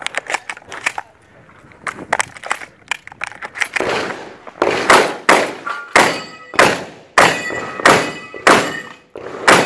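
Shotgun shells being pushed into a pump-action shotgun's tube magazine with small clicks, then a fast string of about seven shotgun shots, a little over half a second apart, with steel targets ringing after hits.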